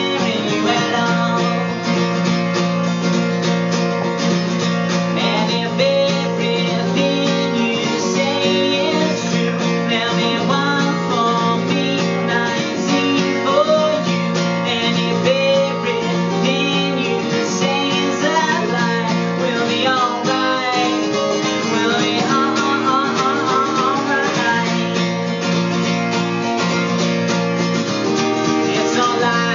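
Solo acoustic guitar played live as an instrumental: a sustained low bass note comes and goes in blocks beneath a picked melody line.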